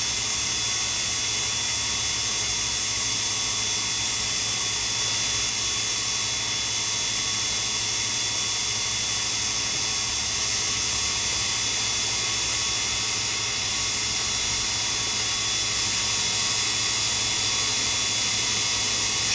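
Grinding-wheel motor of a miniature Sherline-based CNC cam grinder running steadily, a constant high whine over a hiss.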